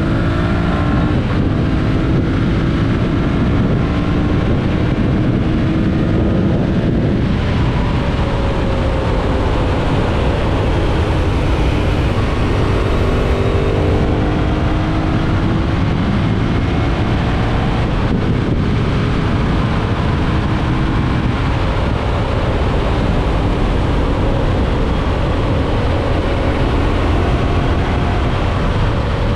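Yamaha MT-07's parallel-twin engine pulling under throttle at highway speed, its note rising, then dipping briefly about seven and again about eighteen seconds in as it shifts up, over steady wind rush.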